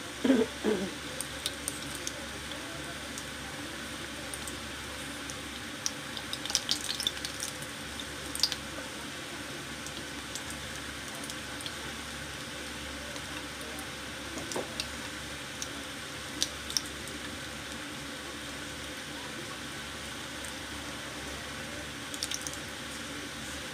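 Breaded potato croquettes deep-frying in a pan of hot oil, a steady sizzle, with sharp clicks and taps from wooden chopsticks against the croquettes and pan coming in brief clusters a few times as they are turned.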